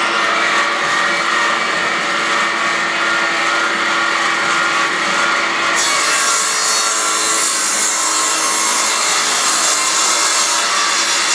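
Household combination woodworking machine running, its cutter working through a wooden board as it is fed by hand. The cutting noise gets brighter and hissier about halfway through.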